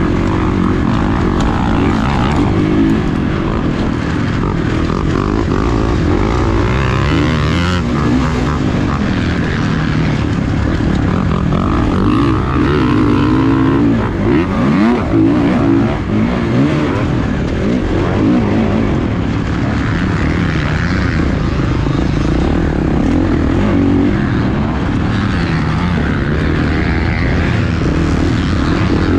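Motocross dirt bike engine revving up and down continuously as it is ridden hard around the track, with wind noise over it.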